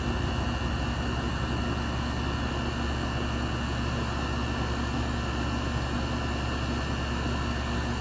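2001 York central air conditioner's outdoor condensing unit running, its top fan spinning: a steady low hum with a few faint steady tones above it, unchanging throughout.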